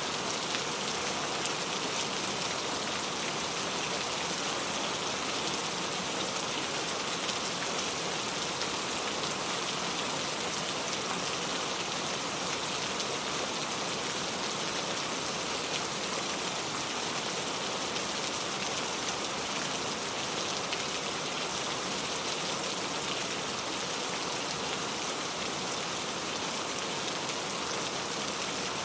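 Steady rain falling, a dense hiss of drops with fine patter on a surface.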